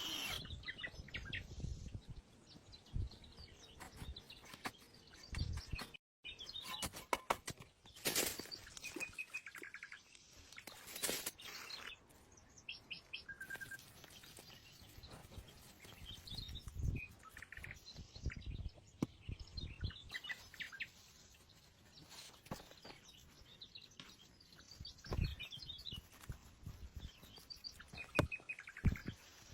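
Small birds chirping on and off, with a few scattered sharp knocks and clatters from work going on close by.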